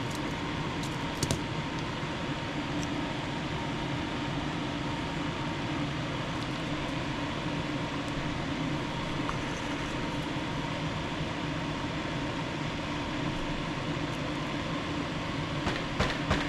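Steady fan-like whirring hum with a faint high tone running through it. A few sharp clicks start near the end.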